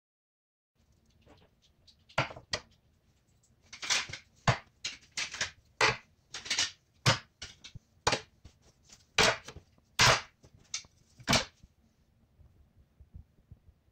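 Wooden spatulas being set down one after another on a wooden tabletop: a run of irregular wood-on-wood knocks and clacks lasting about nine seconds.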